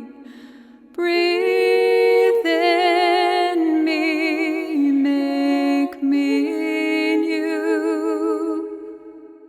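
A sung vocal with vibrato holding long, drawn-out notes over a sustained accompanying tone, as the worship song closes and fades out near the end.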